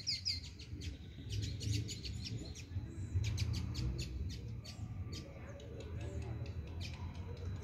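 Small birds chirping: many short, high chirps one after another, over a low rumble.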